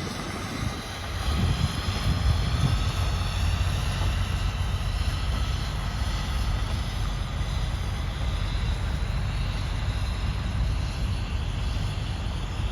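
Motor vehicle running with a steady low rumble of engine and road noise, which gets louder about a second in and then holds steady.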